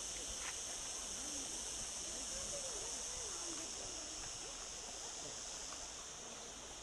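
Steady outdoor background hiss with no distinct event, and faint wavering sounds about a second to three and a half seconds in.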